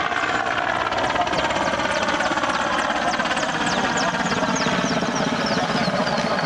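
Mil Mi-8 helicopter flying low overhead: the steady, rapid chop of its rotor blades with a high turbine whine.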